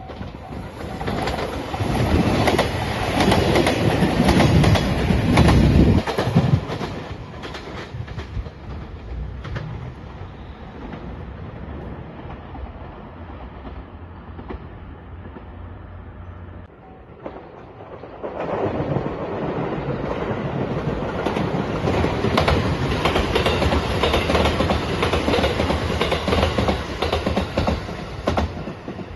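Two trains pass over a level crossing one after the other, wheels clattering over the rail joints. The first goes by in the first seven seconds. After a quieter lull, the second runs past from about 18 seconds in until near the end.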